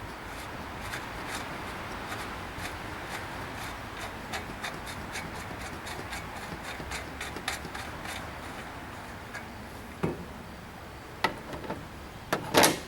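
Metal bicycle parts being worked loose by hand: steady rubbing and scraping with many small clicks, then a few louder metal knocks near the end.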